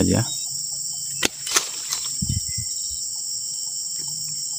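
Hand pruning shears snipping through a small avocado twig: two sharp clicks a little over a second in. A steady, high-pitched insect drone runs underneath.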